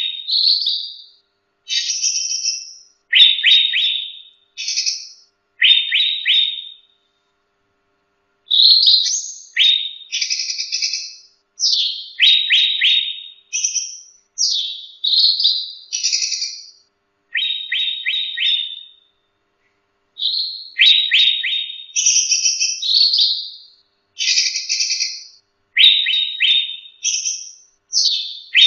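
A cucak rante (a bulbul) singing: a run of short, loud, whistled phrases, many opening with a fast stutter of repeated notes. The phrases follow each other about a second apart, with two brief pauses of about a second, near 7 s and 20 s.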